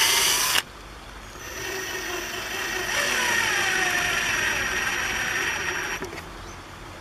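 Ryobi cordless drill running at full speed, cut off abruptly just after the start. A second or so later it runs again, driving a screw through the plastic feeder base into a wooden block. Its motor pitch drops under load about three seconds in, and it stops about six seconds in.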